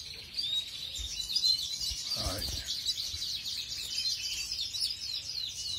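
Canaries chirping and twittering continuously, many short high chirps and trills overlapping, with a few louder chirps about a second and a half in.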